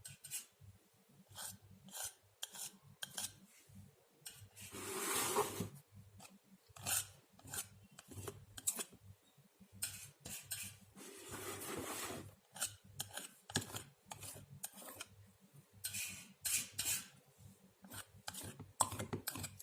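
Steel palette knife scraping and spreading acrylic paint across a board canvas in many short strokes, with two longer drawn-out smears about five and twelve seconds in.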